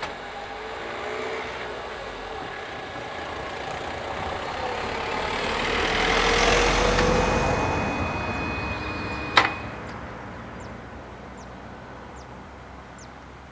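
A van drives over the level crossing and passes close by, its engine and tyres swelling to a peak about six seconds in and then fading away. A single sharp clack comes about nine seconds in.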